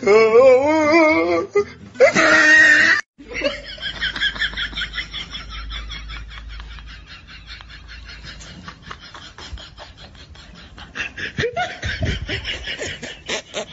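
People laughing in rapid, repeated bursts, broken off by a sudden short gap about three seconds in.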